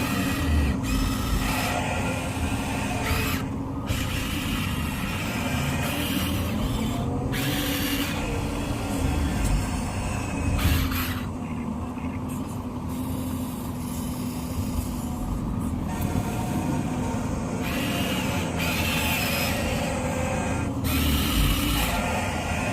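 Electric motors and gearboxes of remote-control construction models whirring, starting and stopping every second or two over a steady hum.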